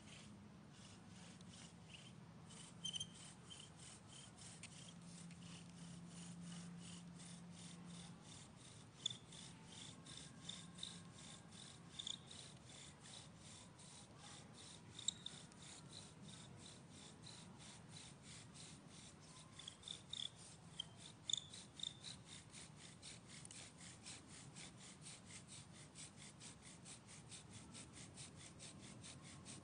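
Bow drill in use: the wooden spindle rubbing in the fireboard socket with a fast, even back-and-forth rhythm of strokes, faint, with a few sharper clicks along the way.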